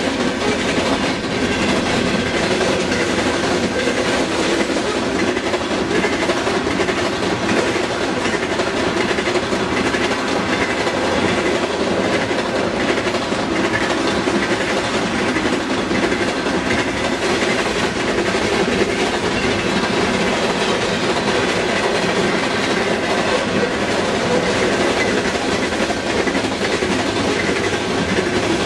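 A BNSF freight train's covered hopper and tank cars rolling steadily past close by: a continuous rumble and clatter of steel wheels on the rails.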